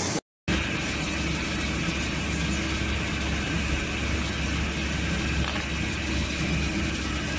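Steady machine-shop hum of a running CNC Swiss-type lathe and its parts collector, with a constant low drone and a faint high whine. The sound drops out briefly just after the start.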